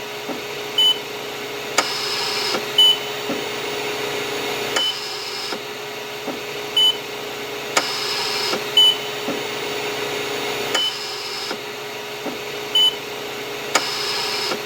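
Hospital mechanical ventilator running: a steady machine hum with a breathing cycle that repeats about every six seconds, and a short high beep about once a second.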